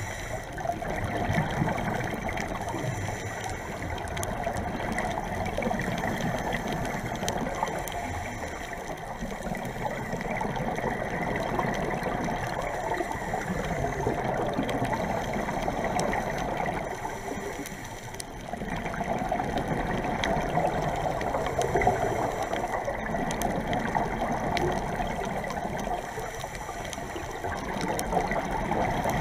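Underwater ambience picked up by a camera in a dive housing on a coral reef: a steady rushing hiss with scattered faint clicks, swelling and easing every few seconds.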